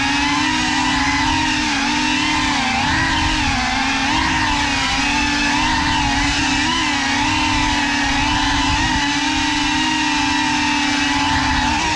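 Cinelog 35 FPV cinewhoop's motors and ducted propellers whining loudly, close up, their pitch wavering up and down with the throttle as it flies.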